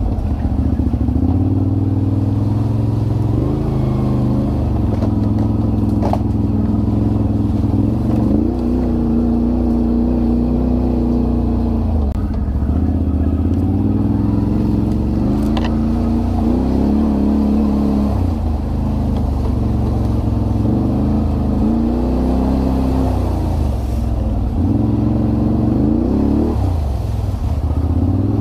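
ATV engine running close up, its pitch rising and falling every few seconds as the throttle is opened and eased off. Two brief sharp knocks, about six seconds in and again near sixteen seconds.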